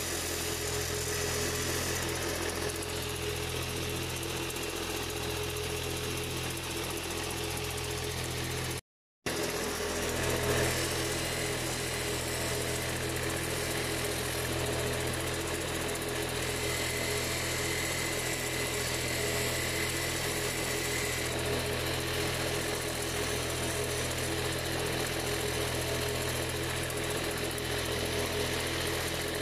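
A lapidary grinding machine's electric motor runs with a steady hum while an opal on a dop stick is ground against its wheel. The sound cuts out for a moment about nine seconds in.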